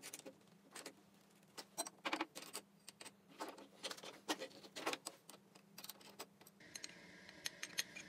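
Steel pieces clinking and tapping against a steel bench vise as a blade and a square tube are handled and set in the jaws: scattered light metallic clicks and knocks, over a faint steady low hum.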